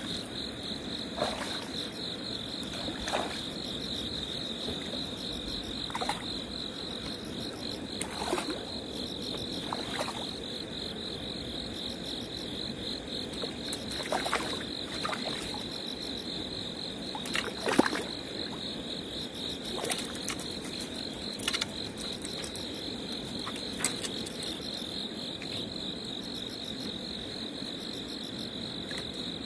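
Crickets trilling steadily at a high pitch in a night insect chorus, over a lower steady background chorus, with short sharp clicks now and then, the loudest about eighteen seconds in.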